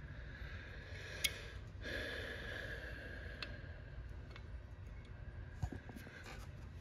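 A few faint metallic clicks and taps as a steel handbrake-cable fitting is handled and held against a car frame, over a steady low hum.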